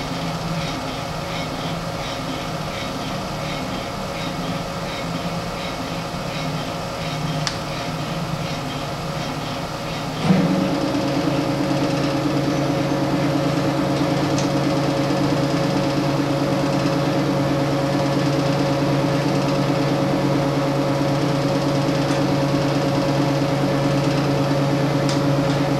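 Stepper motors of a CNC-converted RF-45-clone mill-drill whining as they drive the table through a program. The hum pulses unevenly at first. About ten seconds in there is a short knock, and the hum becomes louder and steady.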